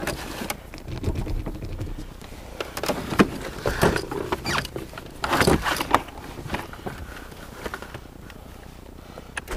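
Handling noise: rustling with irregular knocks and clicks as the camera rubs on clothing while someone works under the dashboard wiring, with a brief low rumble about a second in.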